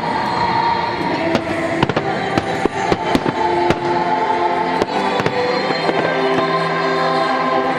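Fireworks going off in a rapid, irregular stream of sharp bangs and crackles, over music with long held notes.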